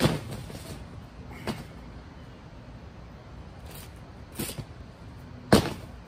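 Metal-framed solar panels knocking and clanking as they are unfolded and set onto a metal rack: four sharp knocks, the loudest near the end.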